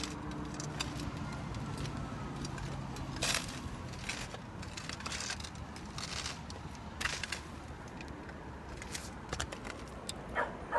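Old mortar pointing between roof ridge tiles being cleaned out, heard as an irregular series of short scratchy bursts, a few of them longer, about half a second each. A low steady hum fades out in the first second or so.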